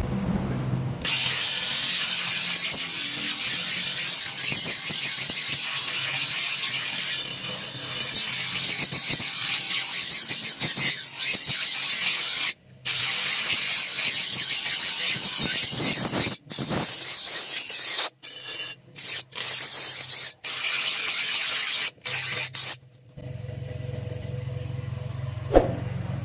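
Bench grinder's abrasive wheel grinding a rusty steel blade: a loud, continuous rasping hiss of steel on the wheel, broken several times by sudden short gaps. For the last few seconds only a steady low hum remains.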